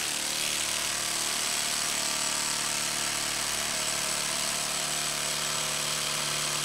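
Milwaukee M12 Fuel brushless impact driver running steadily under load, hammering against a hydraulic pressure-test rig as the pressure builds.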